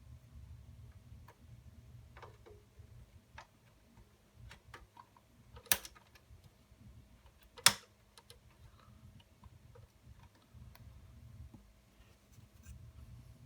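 Small clicks and taps from desktop computer parts being handled and fitted, with two sharp snaps about two seconds apart near the middle.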